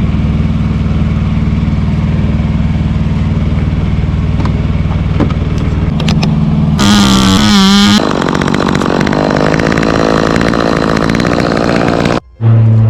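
Engine running steadily. About seven seconds in, a louder, higher engine sound with a wavering pitch comes in for about a second, then the running goes on until the sound cuts out briefly near the end.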